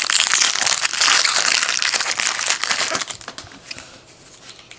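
Foil wrapper of a trading-card pack crinkling as it is handled and torn open, dense and loud for about three seconds, then dropping to a few soft taps and rustles.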